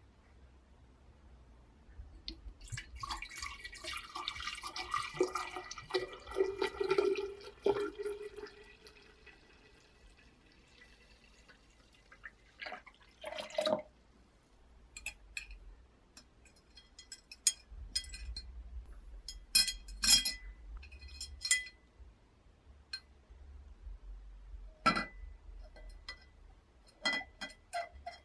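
Liquid poured into a glass jar for about five seconds, then scattered clicks and clinks of glass and metal as a perforated steel tube is set into the jar.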